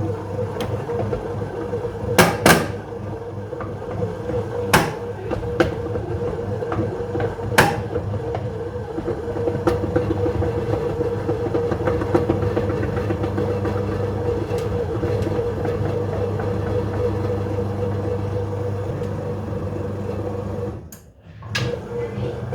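Breville BBM800 breadmaker kneading dough: the motor drones steadily while loud sharp clicks come several times in the first eight seconds, then fainter ones, with a brief dip in the drone near the end. The clicking is, the owner thinks, the drive belt skipping on its cogs when stiff dough puts the motor under too much strain.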